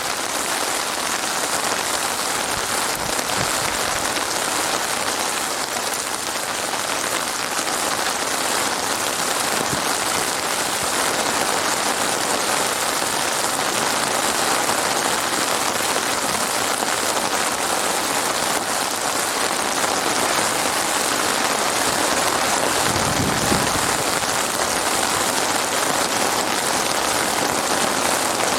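Heavy rain falling steadily, a dense even hiss of drops on a hard surface, with a brief low rumble near the end.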